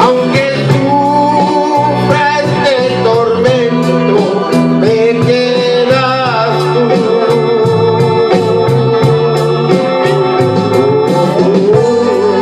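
A romantic ballad sung by a man over electronic organ backing with a steady beat.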